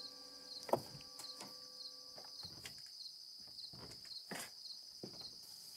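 Crickets chirping at night: a faint, steady high-pitched trill pulsing about twice a second, with a few soft clicks, the clearest just under a second in and again about four seconds in.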